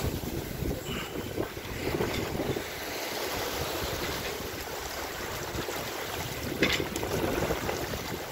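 Wind blowing on the microphone and sea water rushing and splashing past the hull of a Cal 29 sailboat running before a strong wind in choppy open ocean. A few brief sharper sounds break through, the loudest about two-thirds of the way in.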